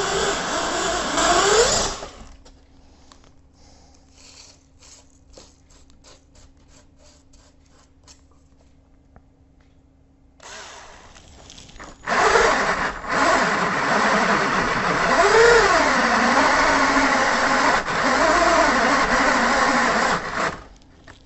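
Parkside cordless drill boring through a Granitek composite sink with a metal-cutting bit. The motor runs under heavy load and stops about 2 s in; after a pause with only faint clicks, drilling starts again about 12 s in, its pitch sagging and rising as the bit bites. The small drill is straining against the very hard material, close to overheating.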